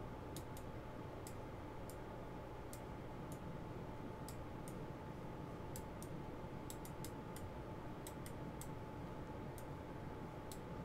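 Faint, irregular clicks of a computer mouse, about one or two a second, as dodge-tool brush strokes are made. A faint steady hum lies underneath.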